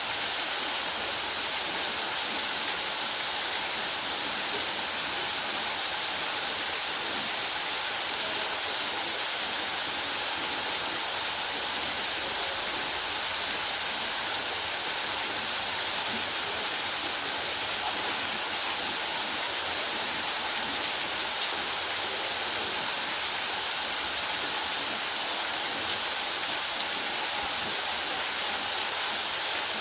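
Small waterfall's water pouring and splashing in a steady, unbroken rush.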